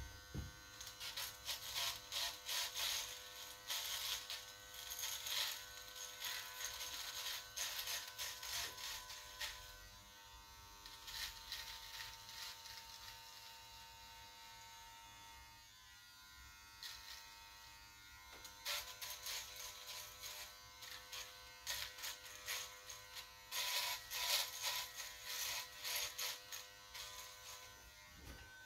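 Cordless hair trimmer buzzing steadily as it edges a beard line, with frequent short rasping passes as the blade cuts the hair; the passes thin out for several seconds in the middle, leaving mostly the motor's hum.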